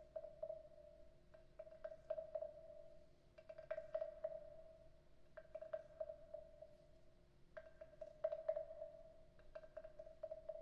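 Wooden frog percussion instrument being tapped in irregular clusters of quick taps. Each tap rings with a short, hollow woody tone.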